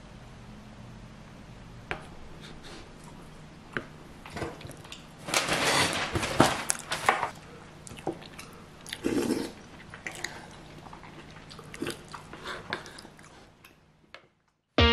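Someone eating pound cake with a spoon from a wooden bowl: the spoon scraping and tapping on the bowl, with chewing, in short bursts. The sounds are busiest a few seconds in and die away near the end.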